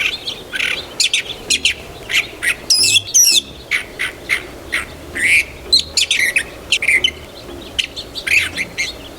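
Birds calling and chirping in quick, irregular short notes, with a fast warbling run of rapid rising and falling notes about three seconds in.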